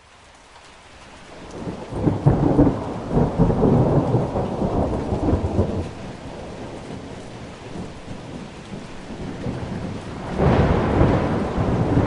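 Thunder rolling over steady rain. A long rumble builds in the first two seconds and dies away by about six seconds in; a second rumble begins near the end.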